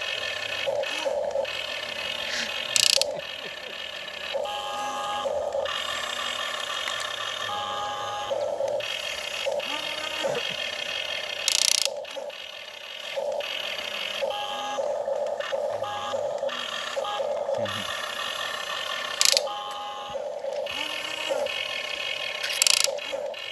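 Small electric motors and gearboxes of radio-controlled model excavators and trucks, whining in short spurts as they move. A few sharp clicks or knocks come through, about four over the stretch.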